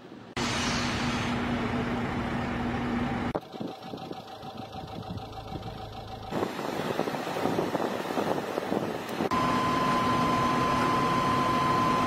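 Heavy construction machinery engines running steadily. The noise changes abruptly every three seconds or so. A steady high whine joins about nine seconds in.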